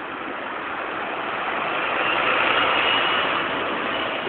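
Single-decker bus driving past, its engine and tyres growing louder to a peak a little past halfway and then fading as it moves away.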